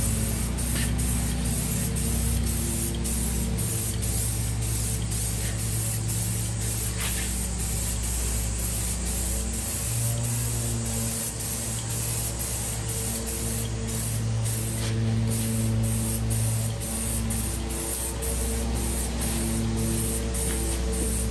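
Aerosol spray can hissing steadily as gloss black paint is sprayed onto a car's grille and bumper.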